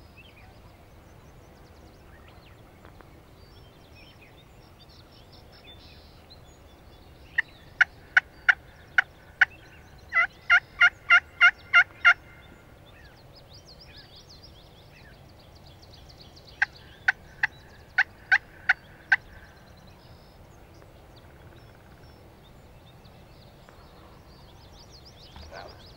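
Turkey yelps: three runs of about seven short, evenly spaced yelps, the middle run the loudest and quickest.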